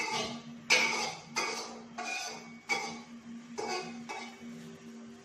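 Dishes and cutlery clattering as they are handled and set down on a counter, a sharp clink about every half second to second, each with a short ring.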